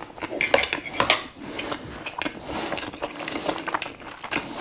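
Metal knife and fork clinking and scraping against a plate, with a few sharp clinks in the first second, followed by small close-miked chewing and mouth sounds.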